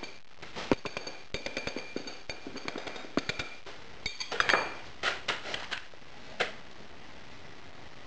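Metal bar rapping a spike driven into a wooden casting pattern in a sand mould, quick irregular ringing metallic taps that loosen the pattern from the rammed sand so it can be drawn out. The tapping stops about six and a half seconds in.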